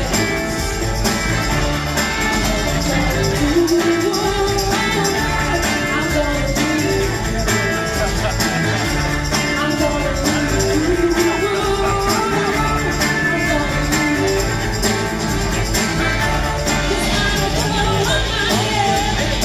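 Live northern soul band playing: a woman singing over a drum kit keeping a steady beat, with electric guitars.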